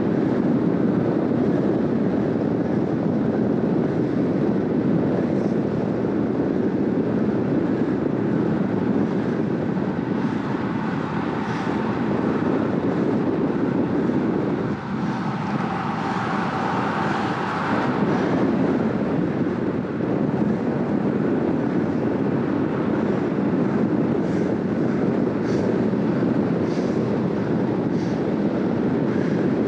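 Steady rush of wind over the microphone mixed with road-bike tyre noise on asphalt, riding at about 46 km/h. The rush dips briefly about fifteen seconds in.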